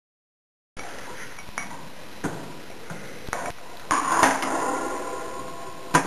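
Small clicks and clinks of a budgie knocking his cat ball toy around the cage, a few separate taps spread out, with a short pitched sound about four seconds in.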